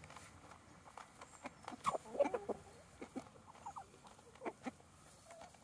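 A flock of hens clucking while feeding, short scattered calls with sharp clicks among them, busiest about two seconds in.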